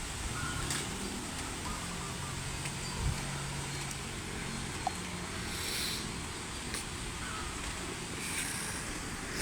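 Wind rumbling steadily on the microphone, with brief hissy gusts about six and eight and a half seconds in and a faint low hum during the first few seconds.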